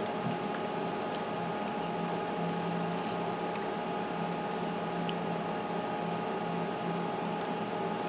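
Steady machine hum, a fan-like drone carrying a few constant tones, with a few faint ticks.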